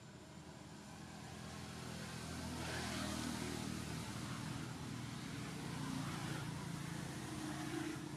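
A motor vehicle's engine running as it passes, growing louder over the first three seconds, holding, then easing off near the end.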